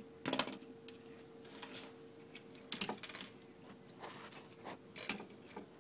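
Hard plastic toy vehicles being handled, giving a few sharp clicks and knocks over a faint steady hum.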